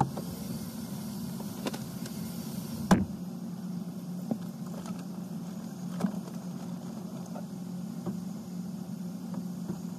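Steady low hum of a parked car running, with scattered knocks and thumps as things are moved around in the car and trunk. A hiss cuts off with the loudest knock about three seconds in.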